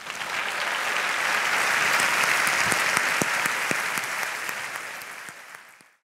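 A large theatre audience applauding. It swells at once, holds steady, then thins and fades out toward the end.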